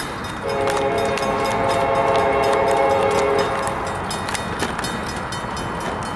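Diesel locomotive horn, on the Norfolk Southern train's SD70M-2 lead unit, sounds one long blast of several notes together. It starts about half a second in and stops after about three seconds. A single Safetran mechanical crossing bell rings with rapid, even strikes throughout; the RACO bell on the other signal is dead and silent.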